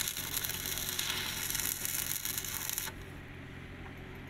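Stick (shielded metal arc) welding on steel: the electrode's arc crackling steadily, then cutting off suddenly about three seconds in as the arc is broken. A steady low hum continues underneath.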